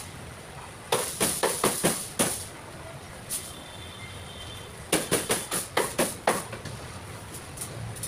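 A cleaver chopping roast chicken on a chopping board: two quick runs of about seven chops each, a few seconds apart.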